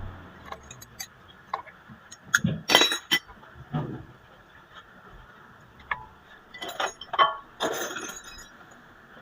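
Metal tools and parts clinking and knocking at irregular intervals, with a cluster of loud clinks about three seconds in and another around seven to eight seconds.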